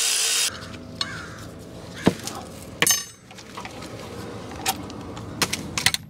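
A Milwaukee M12 cordless ratchet runs on a brake-line banjo bolt and stops about half a second in. Then come scattered metal clicks and clinks, with a sharp knock about two seconds in and a ringing clink just before three seconds, as the bolt and fitting are handled.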